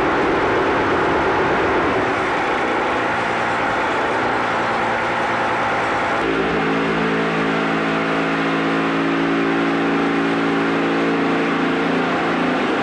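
Concrete block-making machine running with steady mechanical noise; about six seconds in a steady hum sets in, as of its vibrator, and stops shortly before the end.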